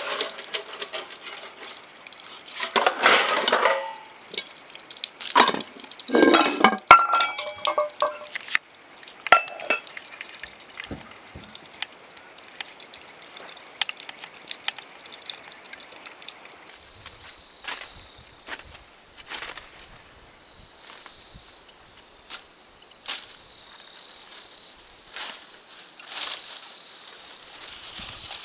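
Steady high chirring of insects, with clinks and knocks of dishes and utensils in the first ten seconds. About halfway through, the insect sound shifts a little lower and grows louder.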